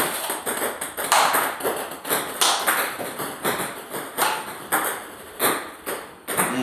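Table tennis multi-ball feeding: a rapid run of sharp clicks as balls are struck with a light, hard, hollow-bodied ball-feeding racket and bounce on the table, about two a second.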